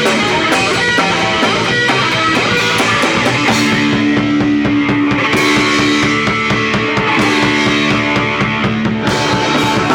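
Live punk rock band playing loud, distorted electric guitar with drums, recorded in the open air on a home video camera; the song's last held chord ends just after this.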